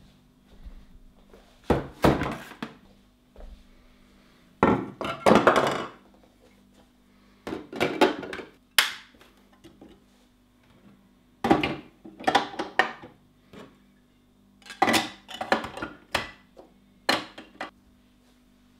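Plastic parts of a juicer being handled and fitted together on a wooden table: irregular clatter, knocks and clicks in about six short bunches with quiet gaps between.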